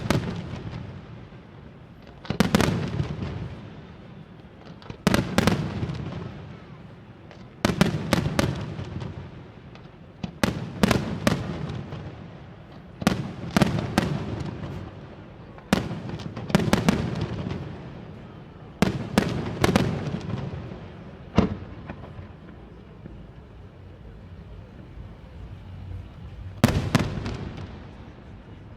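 Aerial fireworks shells bursting overhead, loud bangs coming in clusters every two to three seconds, each followed by a rolling echo. A quieter gap of a few seconds comes near the end, before another burst.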